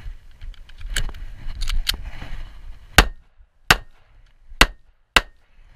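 Ruger LCP .380 pocket pistol: a few small clicks of magazine handling during a reload, then four shots fired about two-thirds of a second to a second apart.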